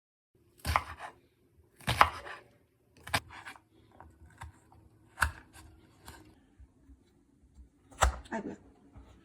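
Knife chopping food on a cutting board in irregular strokes: five sharper knocks with lighter taps between them.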